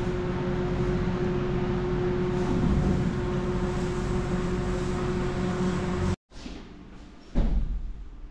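A loud, steady mechanical hum and rushing noise with one constant tone, cutting off sharply about six seconds in. After it comes quieter room noise and a dull thump near the end.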